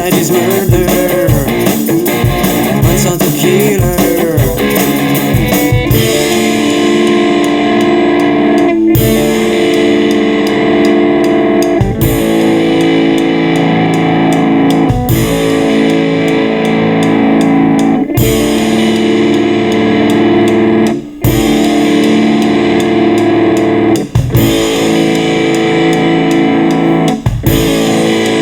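Instrumental break of a rock song: electric guitar lead with bending, wavering notes for the first few seconds, then held chords with a heavy drum hit about every three seconds.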